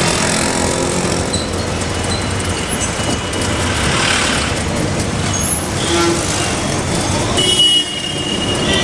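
Auto rickshaw riding through city traffic: its small engine running with road and street noise, heard from inside the open cabin. A high thin tone sounds briefly near the end.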